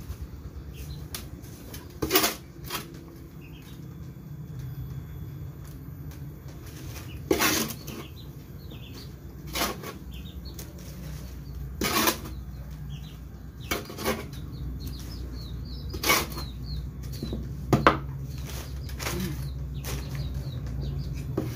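Garden tool repeatedly scraping and striking through a manure and rice-husk-charcoal planting mix in a wheelbarrow, a sharp stroke about every two seconds, with faint bird chirps behind.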